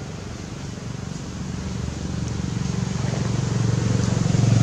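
A motor vehicle engine running with a low rumble, growing steadily louder as it approaches.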